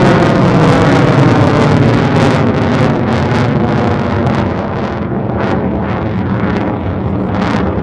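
Lockheed Martin F-22 Raptor's twin Pratt & Whitney F119 turbofans roaring in full afterburner as the jet climbs away, with a ragged crackle. The roar slowly fades as it gains height.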